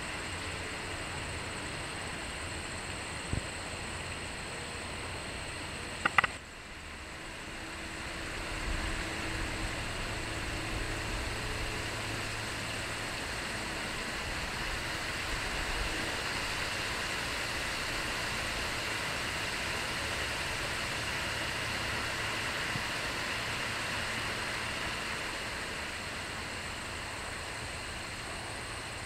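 Outdoor background noise: a steady hiss with a low rumble that grows louder about 8 seconds in. Two short sharp clicks come about 3 and 6 seconds in.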